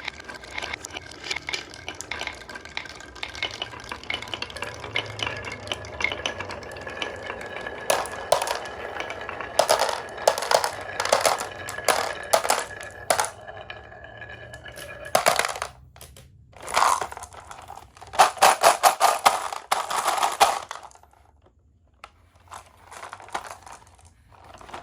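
Glass marbles rolling and clattering down a wooden marble run track, with many small clicks and knocks. There are loud bursts of rapid clattering in the middle and again near the end as marbles pile together, with a faint steady whine underneath for the first half.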